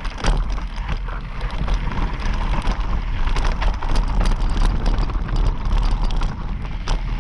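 Mountain bike riding downhill over a rocky dirt trail: a steady low rumble of wind buffeting the microphone, with tyres crunching over loose stones and frequent rattling knocks from the bike.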